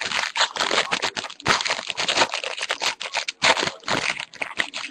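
A 2012 Topps Mini baseball card pack being opened by hand: the wrapper crinkles and tears in a dense run of rustling and crackling.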